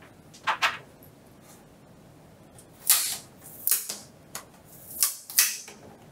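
PlayStation 5 plastic parts clicking and scraping as a black plastic cover strip is worked loose and lifted off the console by hand. Two quick clicks come about half a second in, then a run of short scrapes and snaps from about three seconds on.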